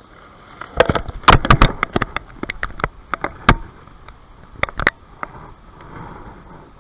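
Mountain stream rushing steadily, with a quick run of sharp knocks and clicks from about one second in to about five seconds in.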